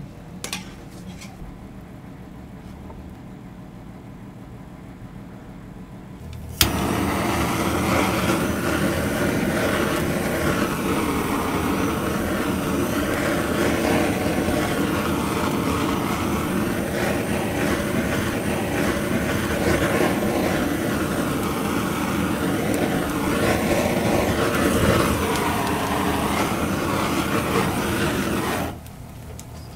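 Handheld butane cooking torch lit with a sharp click about six and a half seconds in, then its flame rushing steadily for about twenty seconds before it is shut off abruptly.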